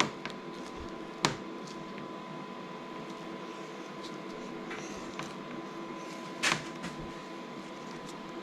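A steady mechanical hum with a constant high tone, over which a few sharp clicks and knocks sound: one at the start, one just over a second in and one about six and a half seconds in.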